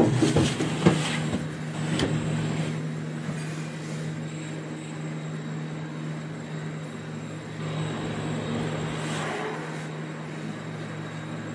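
Cabin of a detachable gondola cable car moving through its station: a steady mechanical hum with a low tone and a faint high whine, after a few clunks and rattles in the first two seconds.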